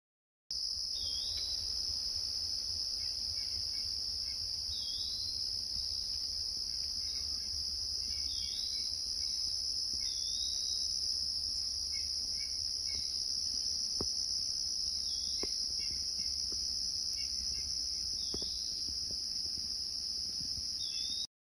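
Insects trilling in a steady, unbroken high chorus. Short swooping calls recur every few seconds, over a low rumble. The sound cuts in and out abruptly.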